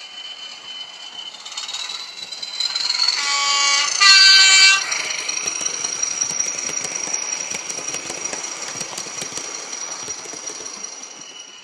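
Bachmann OO-gauge Class 20 model locomotive's sound decoder playing diesel engine sound through its small speaker as the model runs past, with a two-note horn blown about three seconds in, the second note louder. After the horn the engine sound carries on steadily with a high whine and fades slowly as the model moves away.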